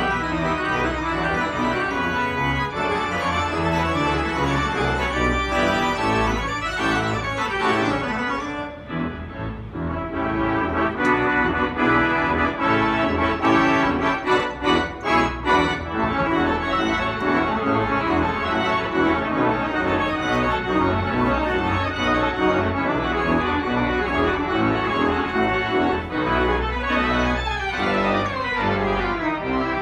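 Spreckels Organ, a large pipe organ, playing full sustained chords over a deep pedal bass. It eases briefly about nine seconds in, strikes short repeated chords around fifteen seconds, and sweeps through fast falling runs near the end.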